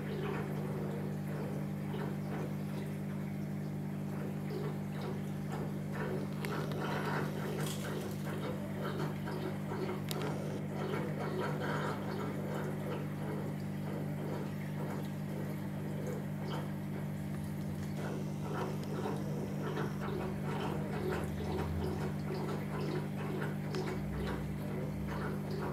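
Aquarium pump and filter running with a steady low hum, while water bubbles and trickles with many small crackling ticks.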